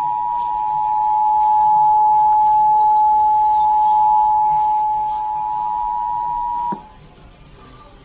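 Emergency Alert System attention signal: two steady tones sounding together, the warning that an emergency alert message follows. It cuts off with a click about seven seconds in, leaving faint background hiss.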